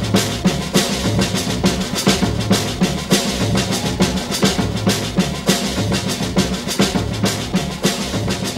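Samba dance music played for a ballroom Latin competition, with a busy, steady drum and percussion beat.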